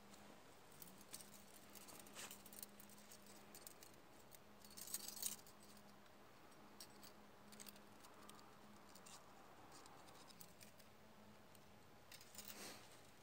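Faint clicks and scrapes of a thin metal saw blade being worked against a wooden stick, with a short louder bout of scraping about five seconds in.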